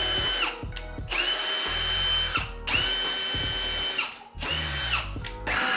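Ryobi cordless drill boring pilot holes. It runs at a steady whine in short runs of about a second, each winding down in pitch when the trigger is let go.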